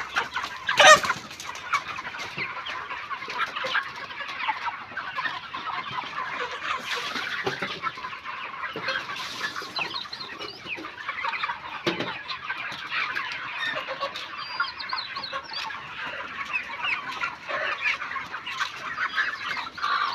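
A large flock of farmed chickens clucking and calling all at once, a dense steady chatter of many overlapping short calls. A sharp knock stands out about a second in.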